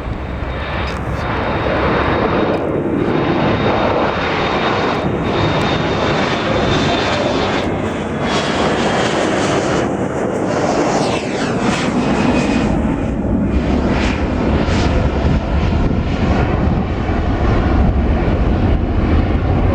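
Airplane engines running at takeoff power, loud and steady, with a faint high whine that slowly falls in pitch.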